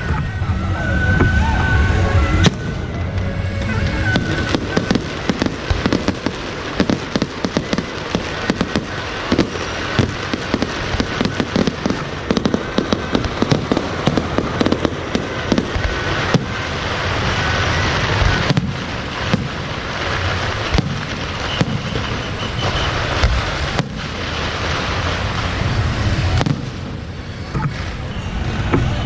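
Fireworks and firecrackers going off in a dense, continuous barrage of bangs and crackles.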